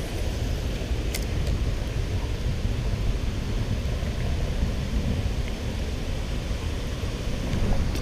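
Steady low rumble of outdoor background noise, with a faint click about a second in.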